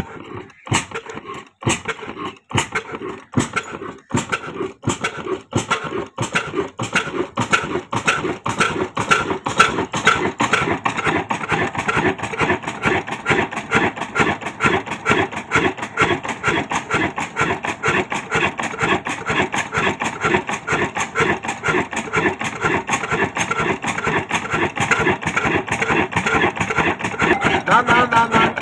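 Old black stationary engine starting up, its exhaust beats coming about once a second at first and quickening over the first ten seconds or so to a steady, fast running beat.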